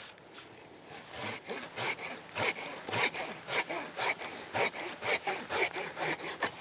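Hand saw cutting through wood in even back-and-forth strokes, about two a second, starting about a second in.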